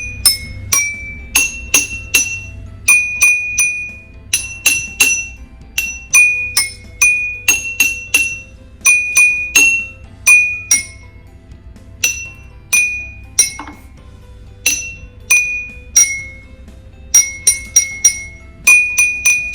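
Water-glass xylophone: drinking glasses holding different amounts of water, tapped with a stick to play a melody. Each tap gives a clear ringing glass note, and the notes step between several pitches.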